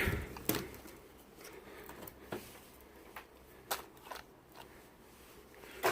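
A few faint, scattered clicks and light taps, like small tools or parts being handled, over a quiet background.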